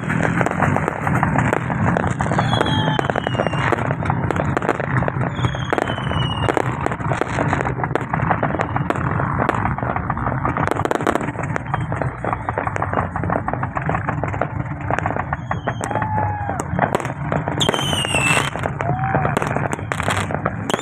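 Fireworks going off continuously in a dense crackle of pops and bursts, with a few short high whistling glides among them.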